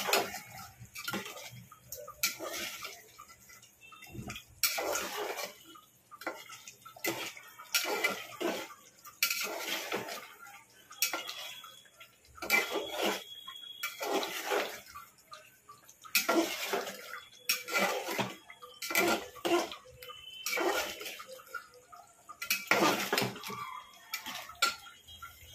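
A metal spoon stirring chicken curry in a hammered metal pot, scraping and knocking against the pot's sides in repeated strokes, roughly one a second.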